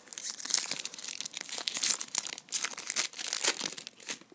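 Foil wrapper of a Topps trading-card pack being torn open and crinkled by hand, a dense run of crackling that stops near the end.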